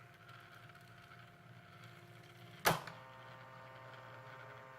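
CasioWriter CW-10 electronic typewriter running in demo mode: a faint steady electrical hum, broken by a single sharp clack a little past halfway.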